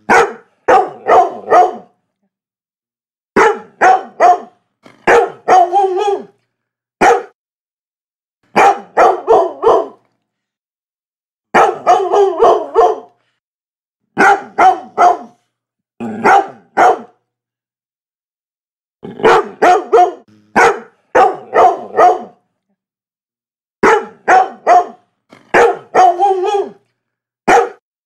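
A Labrador barking in runs of three or four quick barks, with short silent pauses between the runs.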